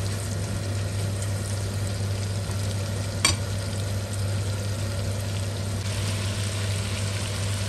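Boneless chicken pieces sizzling as they fry in oil and butter in a pot, stirred with a silicone spatula, over a steady low hum. A single sharp tap about three seconds in.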